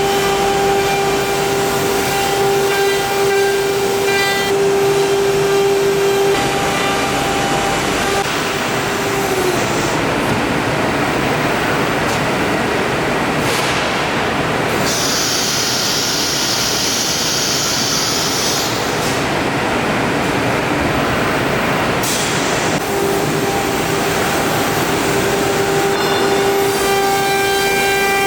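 High-speed CNC nesting router at work: a steady spindle whine for the first several seconds, then a rougher, noisier stretch with a high hiss for a few seconds in the middle, and the whine returning near the end.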